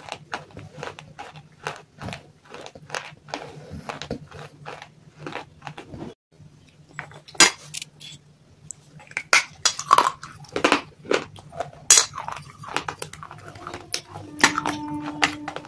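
Hard baked clay being bitten and chewed close to the mouth: a quick run of sharp crunches with a short pause about six seconds in, then louder snapping bites. Near the end a clay piece knocks and scrapes in a steel bowl of paste, and the bowl rings briefly.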